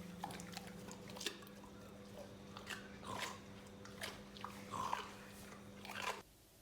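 Irregular crunchy chewing and biting sounds over a steady low hum, cutting off abruptly about six seconds in.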